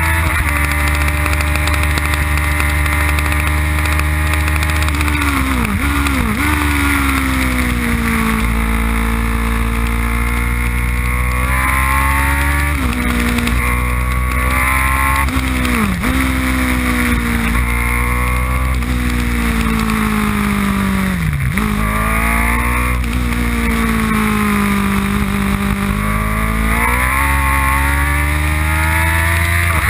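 Open-cockpit race car's engine heard from the driver's seat, driven at speed on track: the revs rise and fall through the corners, dipping sharply about six, sixteen and twenty-one seconds in and climbing again.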